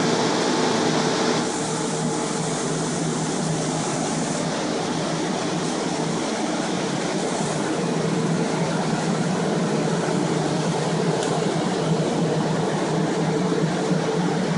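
Water-damage drying equipment, green air-mover blower fans and a dehumidifier, running steadily with a motor hum, drying out a flood-soaked house. It is a little louder for the first second or so.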